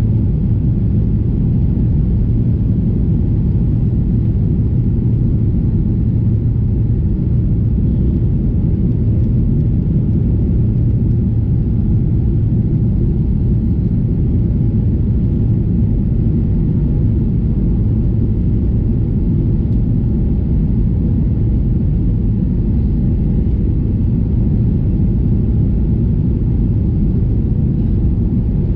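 Steady low rumble inside a Boeing 737-800's cabin during the approach descent, heard from a window seat over the wing: the CFM56-7B engines and the airflow over the extended flaps, with a faint steady hum on top.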